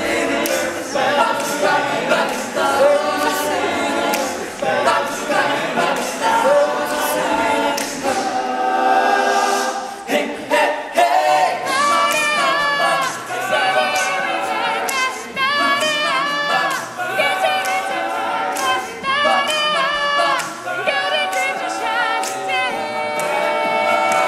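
All-male a cappella group singing, several men's voices together with no instruments.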